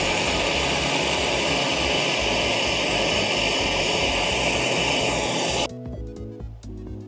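Handheld propane torch burning with a steady hiss, shut off abruptly about five and a half seconds in. Background music plays underneath.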